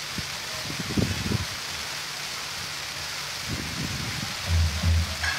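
Steady crackling hiss of electronic firecrackers, with a few low thuds. A pulsing bass beat of music comes in near the end.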